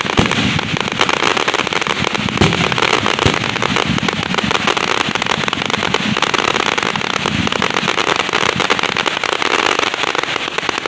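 Fireworks going off close by in a dense barrage: continuous rapid crackling throughout, with a few louder booms in the first few seconds.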